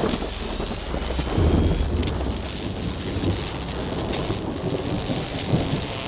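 Off-road race vehicle running at speed: a dense rushing noise over heavy low rumble, with wind battering the microphone.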